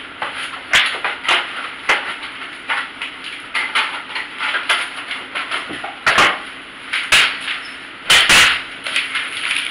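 Kitchen handling noises from someone rummaging: a string of irregular knocks and clatters with rustling between them, the loudest a double clatter near the end.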